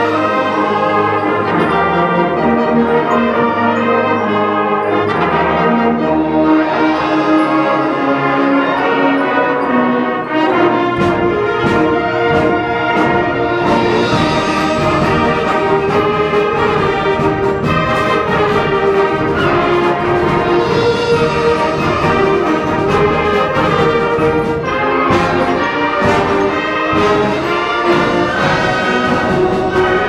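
A concert band of woodwinds and brass playing continuously. About ten seconds in, the bass and percussion come in, with regular drum strikes, and the band sounds fuller.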